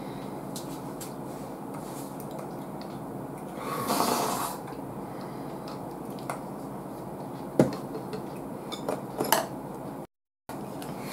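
Eating sounds at a table: a spoon clinking against a small bowl of grated yam (tororo) as it is eaten from, with a louder slurping stretch about four seconds in, over a steady background hum. A few sharp clicks of utensils against the dishes come in the second half, and the sound cuts out briefly near the end.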